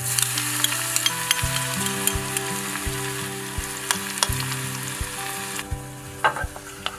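Garlic frying hard in hot oil with dried red chillies: a loud sizzle full of sharp crackles and spits. The sizzle cuts off suddenly about five and a half seconds in.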